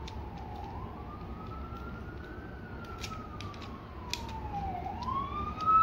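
Emergency vehicle siren wailing, its pitch sliding slowly down and back up about every four seconds and growing louder near the end. A few light clicks of hard plastic toy parts being handled sound over it.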